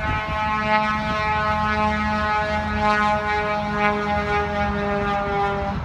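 Excavator running: a steady high-pitched whine over a low engine rumble, holding one pitch and swelling slightly in level, then cutting off abruptly near the end.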